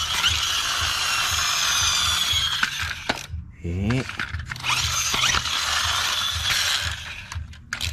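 Friction-powered flywheel toy dump truck being pushed along to spin up its flywheel: a loud whirring gear rattle, twice. Each run starts with a rising whine and then winds down, with a short break a little after three seconds in.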